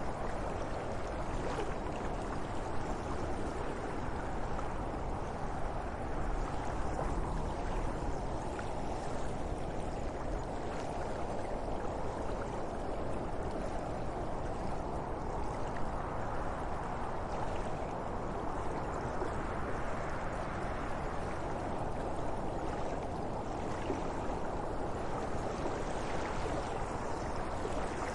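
Steady wind blowing in a continuous rushing noise that slowly swells and eases.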